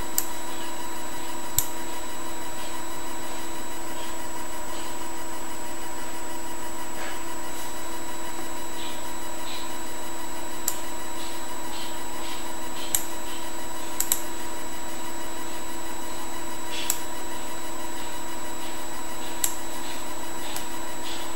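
Steady electrical hum and hiss holding several fixed tones, broken by a handful of short sharp clicks spread through it.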